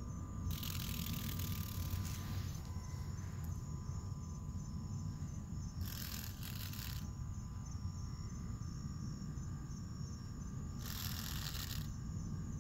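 Crickets chirping in an even, fast-pulsing trill over a low rumble. Three short bursts of hissy rustling, each about a second long, come near the start, about six seconds in, and near the end.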